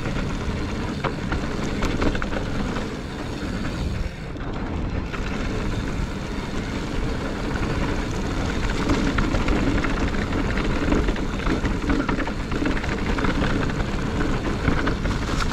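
Mountain bike riding along a dirt trail: steady wind noise on the microphone over rolling tyres, with scattered small clicks and rattles from the bike.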